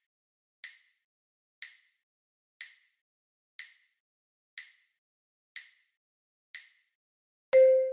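Metronome-style wood-block clicks keeping a steady beat, about one a second, counting in the next rhythm line. Near the end a loud, ringing pitched note begins.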